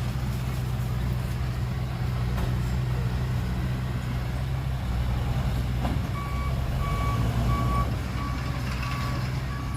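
Heavy dump truck's diesel engine running steadily; about six seconds in its reversing alarm starts beeping, about six beeps roughly three quarters of a second apart, as the truck backs up.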